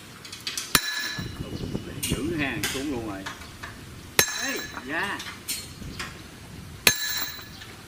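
Hammer blows on a steel drift against a steel gear on its shaft, driving the gear off a Kubota DC105x combine harvester part. There are three sharp metal strikes that ring on afterwards: about a second in, after about four seconds, and near the end.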